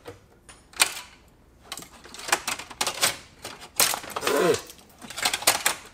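Hard plastic and small metal parts clicking and rattling as old, brittle pieces are pulled out from behind a car's dashboard. The clicks come in several bursts, busiest about two to four and a half seconds in.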